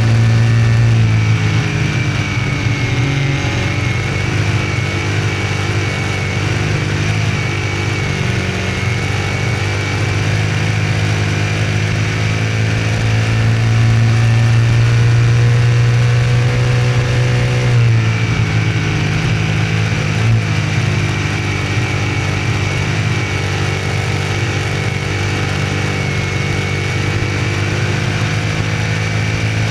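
Small-block V8 of a Troyer TD1 dirt modified racing at speed, heard from on board. The engine note is loud and continuous and eases and rises again through the turns, with a thin high whine above it and one brief knock about two-thirds of the way through.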